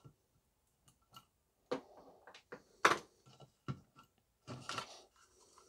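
Scattered small clicks and scuffs of plastic and metal as electrical connectors are pried out of a Dyson V7 vacuum's plastic motor head housing by hand. The sharpest click comes about three seconds in.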